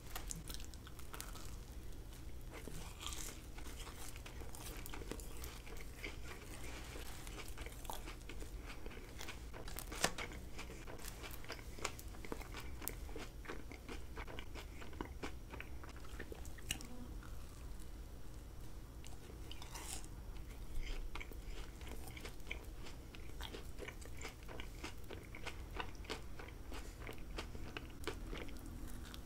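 Close-miked biting and chewing of purple sugar-coated marshmallow candies, a run of small crackly clicks, with a sharper bite about ten seconds in and another about twenty-one seconds in.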